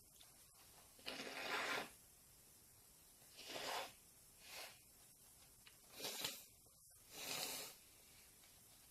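A person breathing hard and sniffing through the nose, five short noisy breaths a second or two apart, with no sneeze coming.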